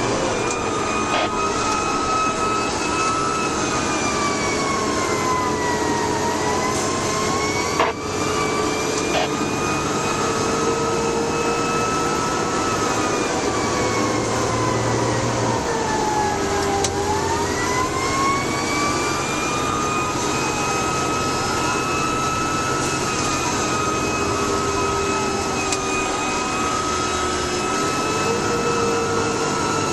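Fire engine siren wailing in slow rising and falling sweeps, over the steady running of the truck's engine and road noise. A brief knock about eight seconds in.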